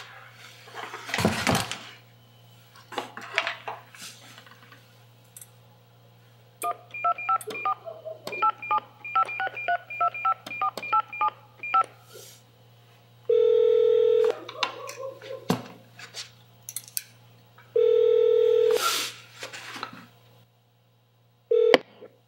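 Cordless telephone being dialed: a brief rustle about a second in, then a quick run of keypad touch-tone beeps over about five seconds. Then two ringback tones of about a second each, about four and a half seconds apart, as the call rings through.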